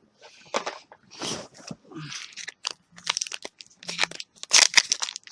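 Trading-card booster pack wrapper being crinkled and torn open by hand: a run of irregular sharp crackles and tearing that grows louder toward the end. The pack takes some force to open.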